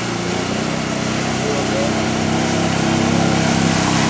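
ATV engine running steadily, its level rising slightly toward the end.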